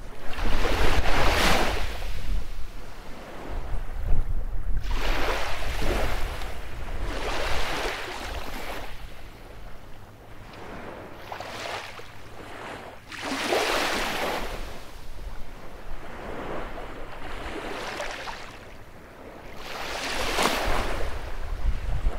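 Baltic Sea waves breaking on a beach, one swell of surf every few seconds, about six in all, over a steady low rumble of wind on the microphone.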